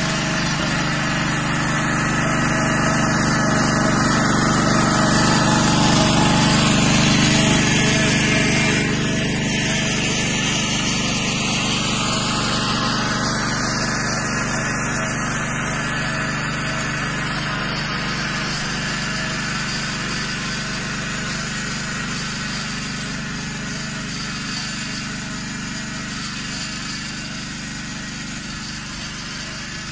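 Engine of a Yağmur YET 300 two-wheel walking tractor running steadily under work, growing a little louder over the first several seconds and then slowly fading, as it moves past and away.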